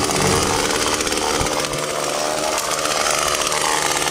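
Chainsaw running steadily as it cuts up a fallen tree trunk.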